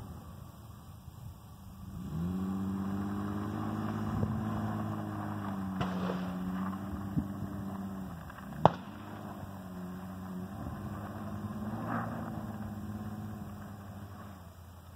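Honda Ridgeline's V6 engine working under load on a steep dirt hill climb. Its pitch rises as it comes on about two seconds in, holds steady, then fades as the truck nears the crest. A single sharp click cuts through about halfway.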